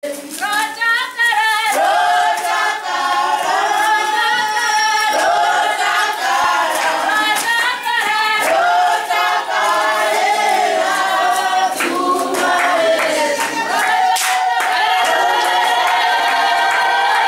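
A group of women singing a song together without instruments, with hand claps keeping the beat.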